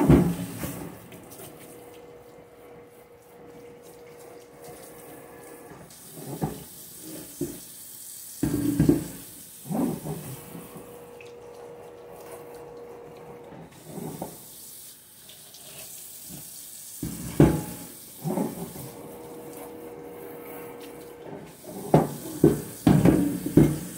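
Water running from a tap into a kitchen sink, with a few short clunks and knocks from something being handled in the sink every few seconds.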